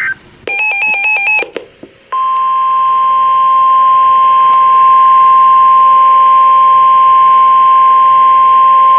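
NOAA Weather Radio alert signalling. A warbling SAME digital data burst plays about half a second in, after the end of another right at the start. From about two seconds in, the steady 1050 Hz warning alarm tone holds without a break, announcing a flash flood warning.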